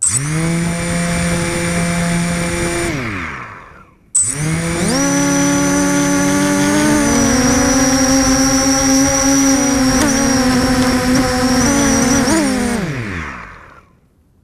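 QAV250 quadcopter's brushless motors and propellers spinning up to a steady whine, then winding down with a falling pitch. This happens twice: a short run that dies away about three seconds in, then a longer run from about four seconds in whose pitch shifts a little before it glides down and stops near the end.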